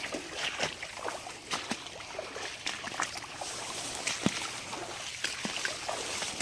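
Snake boots wading through shallow floodwater and mud: irregular sloshing, splashing steps.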